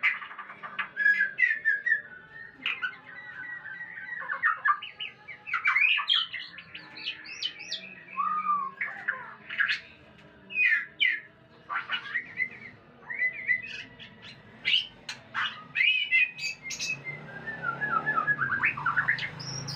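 White-rumped shama singing courtship song: a quick, varied run of clear whistles, sliding notes, chirps and harsh notes, one phrase after another. A low rumble comes in near the end.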